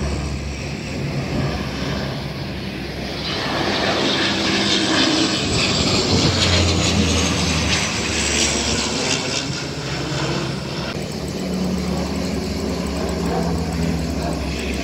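Canadair water-bombing planes flying low overhead, their twin propeller engines droning. The sound swells as a plane passes above, is loudest around six to nine seconds in, then eases off.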